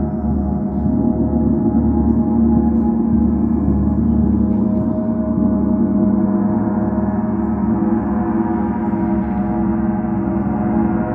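Several large planetary gongs played continuously with mallets, their tones overlapping into one steady, dense wash of sound with no distinct strikes.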